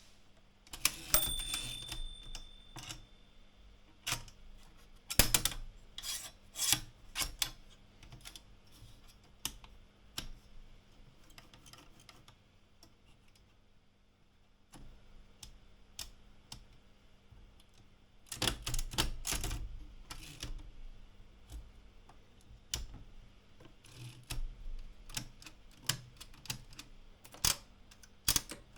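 Erika 115 portable typewriter being worked through its carriage features: scattered mechanical clicks and clunks of its levers and carriage, with a short ringing tone about a second in and a dense run of rapid clicks about two-thirds of the way through.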